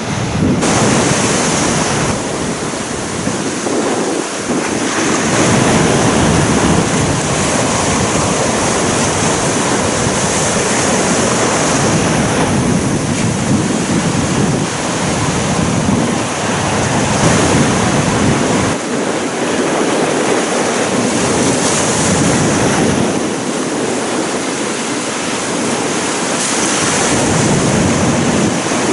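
Ocean surf breaking and washing up the beach, a continuous loud hiss that swells every few seconds as waves break.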